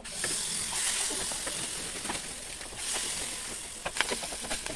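Hot oil sizzling in a small pan, starting suddenly as seasoning is spooned in, then crackling as fresh spinach leaves are dropped in near the end.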